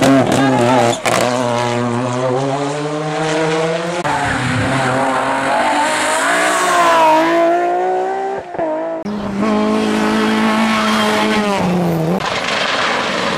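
Hill-climb race cars' engines revving hard under full acceleration. The pitch climbs through each gear and falls back at each shift, in several short passes that break off abruptly.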